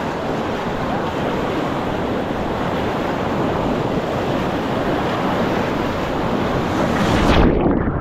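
Loud, steady rush of river whitewater, an even noise with some wind on the microphone, that swells just before the end and then cuts off abruptly.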